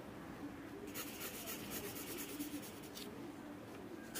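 Graphite pencil scribbling a small tight spiral on paper: a soft, rapid, rhythmic scratching of the tip going round and round. It starts about a second in and breaks off briefly near three seconds.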